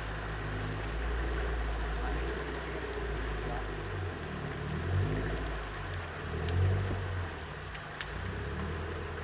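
Off-road 4x4's engine running at low revs, swelling a few times, with a steady rushing noise over it.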